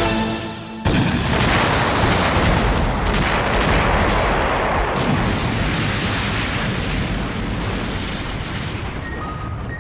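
Sound-effect explosion of a giant monster being blown apart: a short humming tone cuts off into a loud blast about a second in, then a long rumble that surges again midway and slowly fades.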